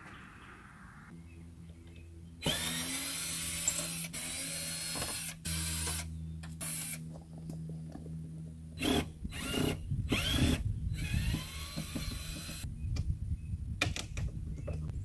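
Cordless drill running at the screws of a metal window frame, in several runs of a second or two with short pauses. In the second half the runs turn into short, choppy bursts.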